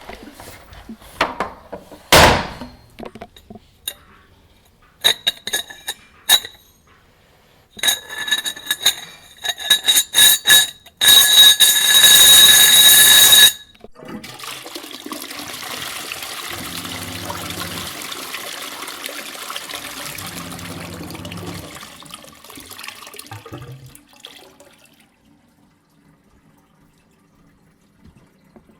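Scattered clicks and knocks, then a short clatter and a loud rush of water, followed by a long steady hiss of running water that dies away after about ten seconds.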